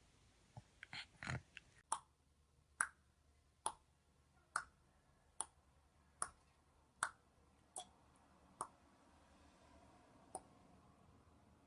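A series of faint, sharp clicks, evenly spaced a little under a second apart, nine in a row, with one more click a couple of seconds later.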